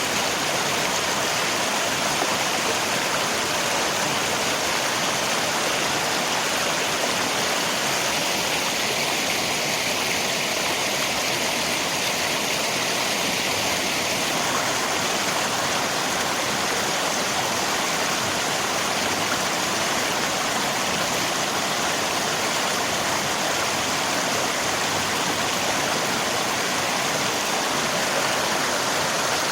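River water flowing with rain falling, a steady, even rush of water noise.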